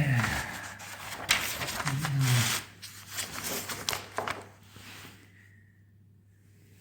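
Packaging being handled during unboxing: plastic bags and cardboard rustling and crinkling with sharp clicks, fading out after about four and a half seconds. Two short vocal sounds that fall in pitch, like a hum or grunt, come at the start and about two seconds in.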